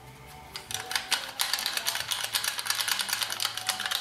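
Ratchet and pawl of a 1964 Chevrolet Impala foot-operated parking brake pedal assembly clicking as the freshly greased pedal is worked by hand: a fast run of sharp metal clicks starting about a second in.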